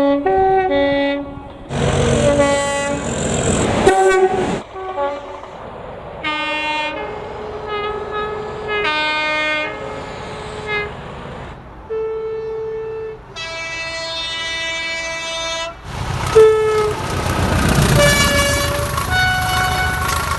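A run of British diesel locomotive horns, one after another, each sounding a short two-tone blast of alternating high and low notes at different pitches. The rumble of a passing train swells twice beneath the horns, about two seconds in and again near the end.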